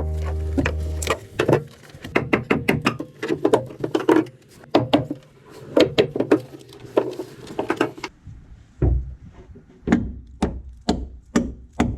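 Repeated knocking and hammer blows on wood and fibreglass, coming faster and more irregularly at first, then settling into heavy, evenly spaced strikes about two a second in the second half. A held music chord fades out about a second in.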